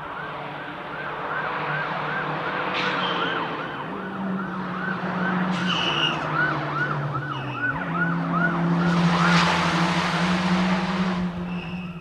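A siren yelping in quick rising-and-falling sweeps, about two and a half a second, over the turbocharged flat-four engine of a Subaru Impreza WRX STi rally course car changing up through the gears. The siren stops about eight seconds in, and the car's noise swells loudest between about nine and eleven seconds in as it comes closer.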